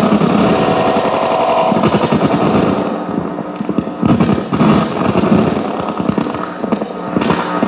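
Loud harsh electronic noise: a dense, rapid crackling throb that dips briefly about three seconds in.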